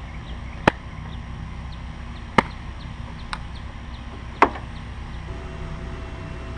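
Four sharp clicks or knocks, one to two seconds apart, over a low steady rumble.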